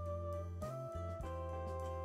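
Instrumental background music: held notes that change every half second or so over a steady bass line.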